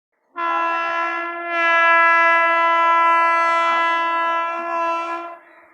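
Horn of an Indian Railways WAG-9 electric freight locomotive sounding one long steady blast of about five seconds, getting louder about a second in and cutting off near the end.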